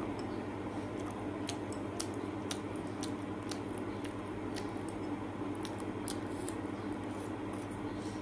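Eating a bowl of noodle soup: scattered light clicks of a utensil against the bowl, with chewing, over a steady low hum.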